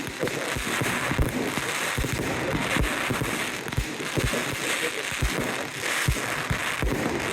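Fireworks display going off: a steady run of deep booms from bursting shells, about two or three a second, over continuous crackling.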